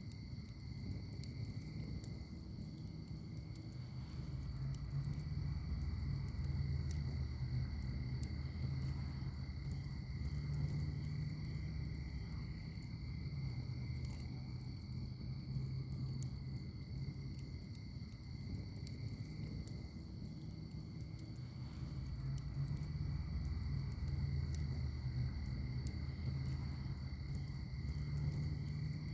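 Wood fire burning in a fire pit: scattered small crackles and pops over a low rumble of flames that swells and fades every several seconds.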